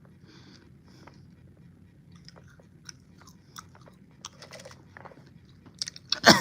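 Someone chewing a Bean Boozle jelly bean: soft, scattered mouth clicks and smacks, then a sudden louder burst just before the end.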